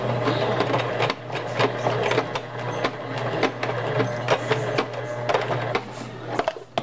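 Singer Heavy Duty sewing machine running and stitching through fabric: a steady motor hum with rapid needle clatter, stopping near the end.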